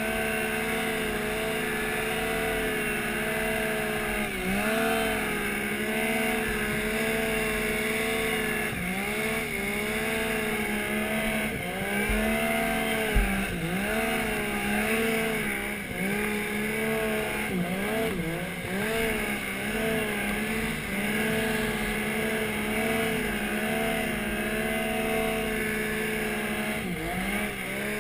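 Stock Yamaha Nytro snowmobile's four-stroke three-cylinder engine running hard under load in deep powder, its pitch repeatedly dipping and climbing back as the throttle is worked. A single sharp knock comes about halfway through.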